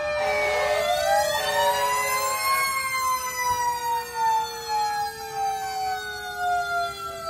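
Several emergency vehicle sirens sounding together in overlapping wails. One winds up from low to high over about two seconds and then slowly falls away, while others glide down around it.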